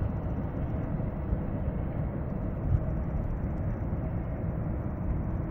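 Jet engines of an Airbus A330 airliner at taxi idle as it rolls slowly past: a steady low rumble with a faint steady hum above it.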